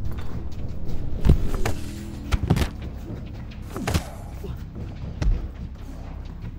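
Fight-scene sound effects of punches and body blows, several sharp thuds over a low, steady film score.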